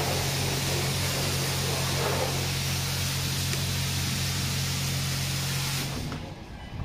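Steady loud hiss over a low, even hum, the kind of noise a self-service car wash bay's running equipment and spray make. It drops off abruptly near the end.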